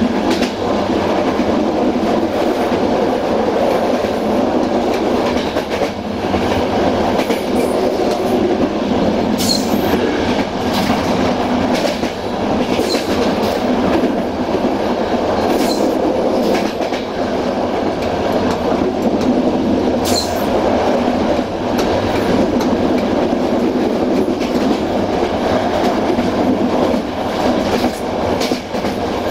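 Passenger train rolling steadily along the track, heard from on board: a continuous rumble and rattle of wheels on the rails. A few short, sharp clicks and squeaks break through now and then.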